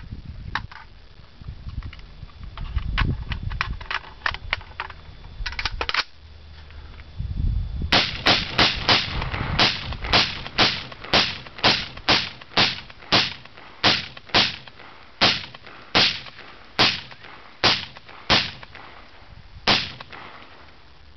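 AR-15 rifle fired shot by shot in a rapid string of about twenty loud shots, slowing from about three a second to about one every second and a half. Before the string, a few fainter sharp cracks over a low rumble.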